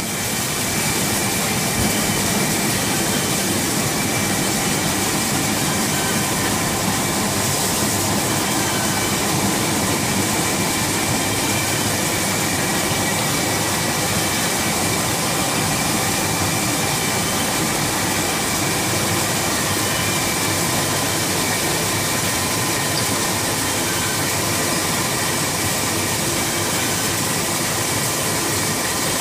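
Codimag Viva 340 label printing press running, a steady machine noise with faint steady whines as the printed label web feeds through its rollers.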